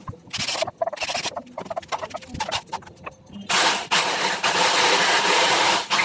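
A cordless drill boring into pine pallet wood in several short bursts, then a jigsaw cutting steadily through the board for about two and a half seconds, cutting out a slot from the drilled starter hole.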